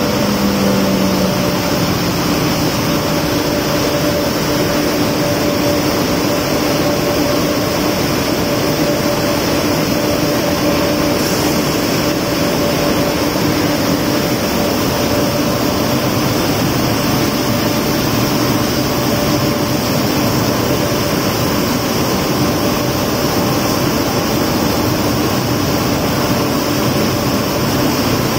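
Sugar centrifugal machine running at speed, its basket spinning massecuite to separate the sugar crystals from the molasses. It gives a steady, loud machine noise with a couple of steady humming tones in it.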